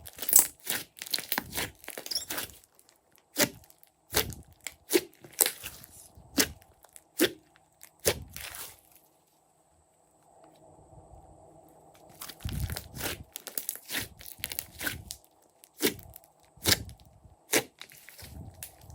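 Glossy slime being kneaded and pressed by hand, giving irregular sharp pops and crackles. There is a pause of about three seconds in the middle.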